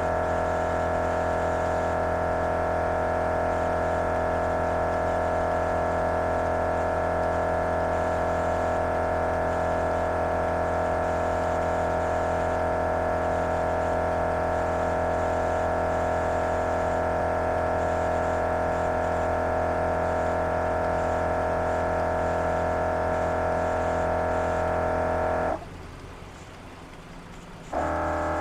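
Tire-inflation air compressor of a MORRflate system running with a steady hum while inflating the tires. Near the end it cuts out abruptly for about two seconds and then starts again: one of the short pauses that the owner guesses is the system testing the tire pressure.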